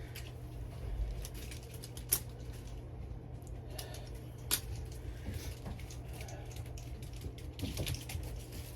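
Scattered light clicks and taps, with two sharper clicks about two seconds and four and a half seconds in, over a steady low hum.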